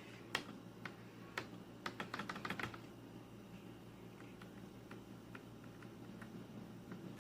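Keys being typed on a Royal Kludge RK84 mechanical keyboard. There are scattered single key clicks, a quick run of keystrokes about two seconds in, then slower, fainter taps.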